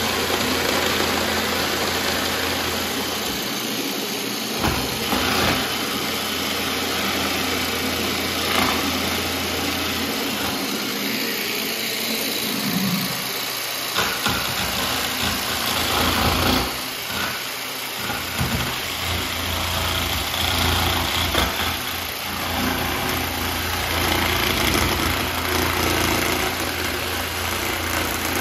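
Festool Carvex jigsaw with a Collins coping foot cutting a cope into the end of primed pine crown molding, the blade running steadily with a few brief dips.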